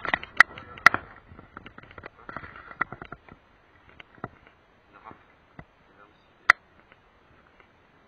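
Pebbles clicking and crunching under hands and a landed common carp as the hook is worked out of its mouth on a gravel bank. A quick string of sharp clicks comes in the first three seconds, then scattered ticks, and one sharp click about six and a half seconds in.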